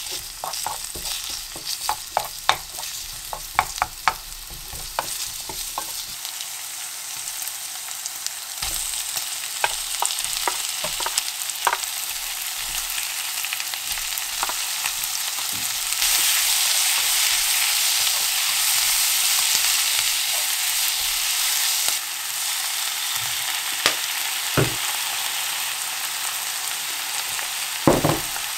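Bacon and sliced green onion sizzling in oil in a nonstick pan, stirred with a spatula that clicks and taps against the pan over the first few seconds. Chopped kimchi is tipped in, and the sizzle grows louder about halfway through, with a few more spatula knocks near the end.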